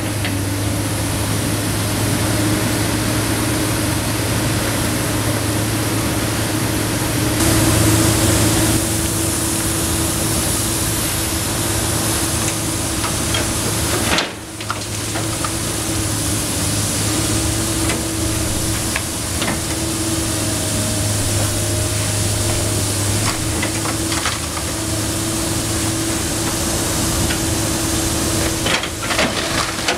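Komatsu PC290 NLC excavator's diesel engine running steadily under hydraulic load, over the hiss of a water hose spraying the rubble. Scattered knocks and cracks of breaking masonry come as the demolition grapple works the wall.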